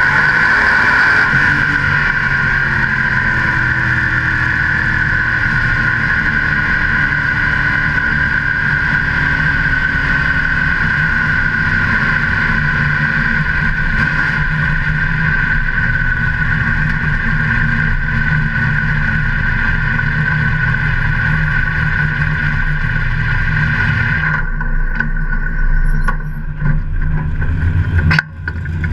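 Modified race car's engine heard from the in-car camera, running steadily on track. About three-quarters of the way through the sound thins and turns choppier, with a few knocks near the end.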